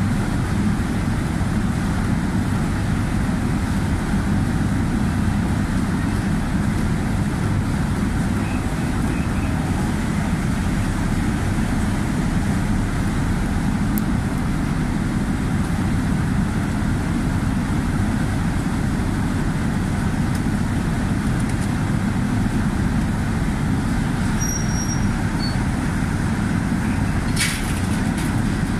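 Car ferry MV Clansman's engines running steadily at the berth, a constant low rumble with a faint hum. A single sharp click near the end.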